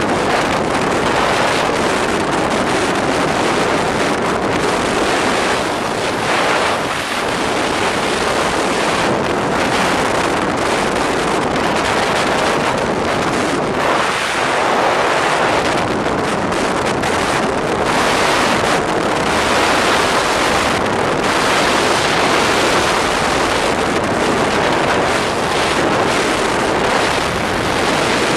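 Steady rushing road noise from travelling along a road at speed, with wind buffeting the microphone and gently swelling and easing.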